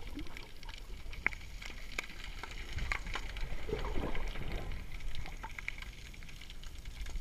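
Underwater ambience heard from a submerged GoPro camera: a dull low water rumble with scattered sharp clicks and crackles, and a short gurgle of bubbles about four seconds in.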